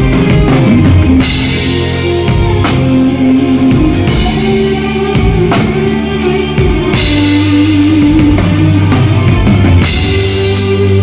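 Rock band music with a full drum kit played on it: kick, snare and tom hits over held guitar and bass chords. A Zildjian K cymbal wash swells about a second in and again around seven seconds in.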